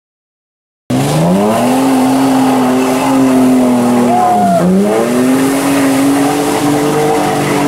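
Ford Explorer's engine revving hard and held at high revs as it ploughs through a mud hole with wheels spinning; the revs drop sharply about three and a half seconds in and climb straight back up.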